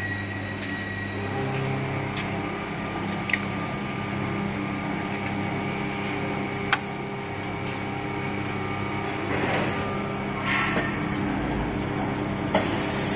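Automatic spray painting machine running with a steady hum, with a few sharp clicks as parts are handled. Near the end a loud hiss from the spray booth joins in.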